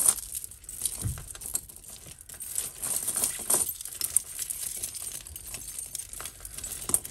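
Costume jewellery clinking and rattling as a long strand of glass beads is drawn out of a tangled pile of chains, bangles and beaded necklaces: irregular small clicks and jingles.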